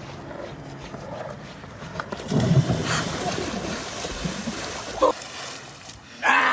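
Water splashing as a skateboard runs through floodwater in a skatepark bowl. There is a burst of splashing about two seconds in and a second loud splash near the end.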